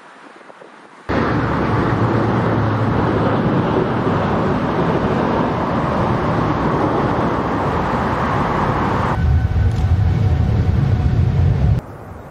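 Loud jet-engine noise of a passing airliner. It cuts in suddenly about a second in, turns to a deeper rumble about nine seconds in, and drops away abruptly near the end.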